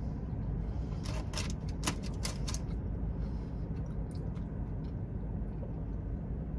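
Eating and food-handling noises: a quick run of sharp clicks and crackles starting about a second in, with a few fainter ones later, over a steady low rumble.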